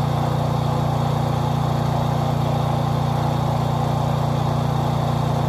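Gas engine of a truck-skid pressure washer running at a steady, unchanging pitch.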